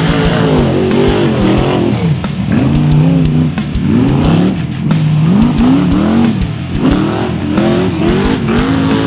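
Rock bouncer buggy's engine revving hard under full throttle on a steep dirt climb, its pitch surging up and dropping back again and again, about once a second, with rock guitar music mixed in underneath.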